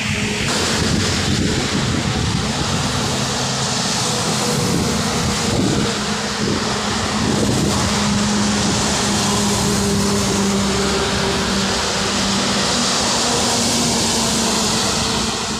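Heavy trucks passing on a rain-wet highway: tyres hissing on the wet asphalt over a steady low engine and tyre drone.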